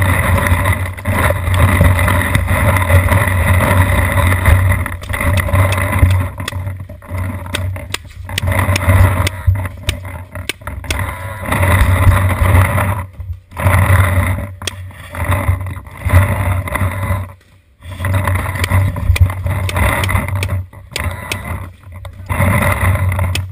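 Loud rumbling buffeting on a GoPro camera mounted on a paintball marker as the player moves, coming in long stretches broken by several brief drops.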